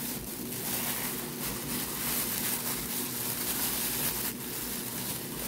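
Thin plastic bag crinkling and rustling as hands work a graded card slab out of it.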